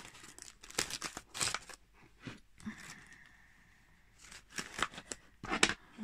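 Plastic packaging bags from a diamond painting kit crinkling and rustling in the hands, in short irregular bursts with brief lulls.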